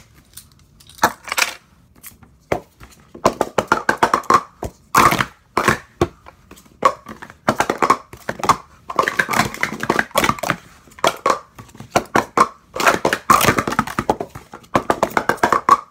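New blue Speed Stacks sport-stacking cups being rapidly stacked up into pyramids and collapsed back down on a stack mat: quick plastic clacks and rattles as the cups nest, slide and set down, with only short pauses between runs.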